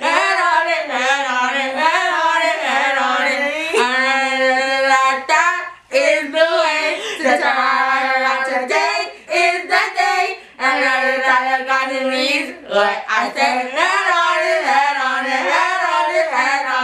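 Female voices singing a song with mouthguards in, in phrases of long held notes and sliding pitch broken by short pauses.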